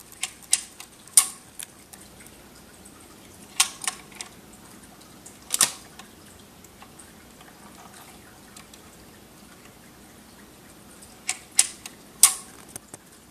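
Dual 1019 record changer running through a change cycle: a run of clicks as the mechanism engages and the tonearm lifts and swings away, a single sharp clack a little past the middle as the next 45 rpm single drops down the slim spindle onto the platter, then another run of clicks near the end as the arm returns and sets down on the record.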